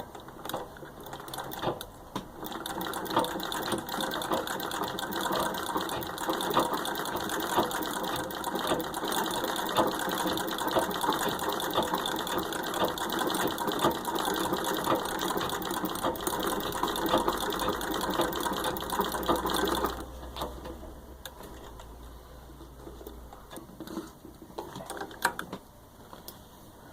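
Singer 66-4 treadle sewing machine running with a Greist automatic overcaster attachment fitted, a fast, even mechanical clatter of the stitching mechanism. It picks up a second or two in and stops about three quarters of the way through, leaving a few faint knocks.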